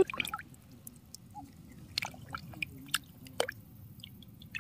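Water being handled: scattered small wet clicks, squelches and drips, with a few sharper clicks about two and about three and a half seconds in.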